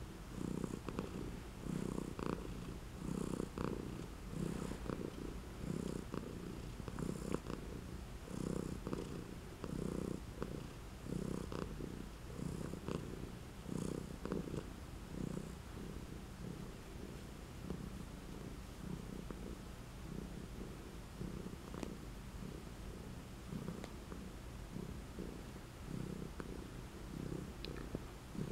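Domestic tabby cat purring close up while being scratched under the chin, a low steady purr swelling and fading about once a second; it is strongest in the first half and softer later on.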